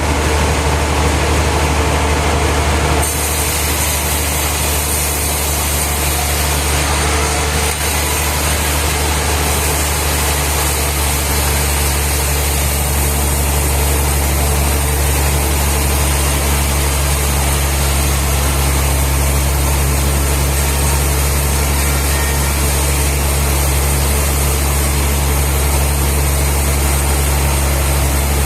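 Sawmill machinery running with a steady low drone, with no cutting strokes standing out; a higher hiss and thin whine join about three seconds in.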